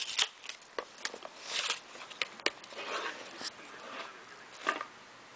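Hands handling and opening the packaging of a trading card box: scattered rustles and sharp clicks of wrapper and cardboard.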